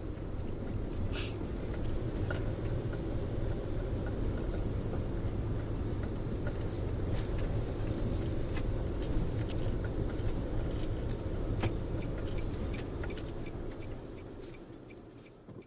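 Wood fire crackling in sparse small snaps over a steady low rumble, fading out near the end.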